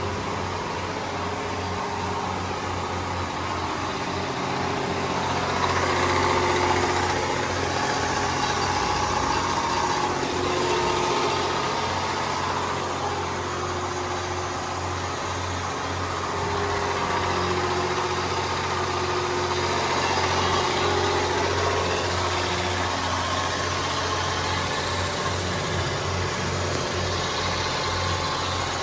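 Steady low mechanical drone, like an engine or motor running, swelling a little twice.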